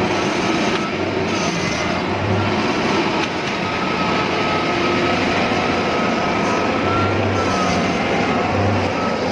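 Rice combine harvester running: steady, loud engine and machinery noise with a faint high whine above it.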